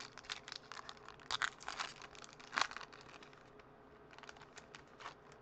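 Foil wrapper of a baseball card pack crinkling and tearing as it is opened by hand, in a quick run of short crackles. It is loudest about a second and a half in and again around two and a half seconds, then goes fainter and sparser.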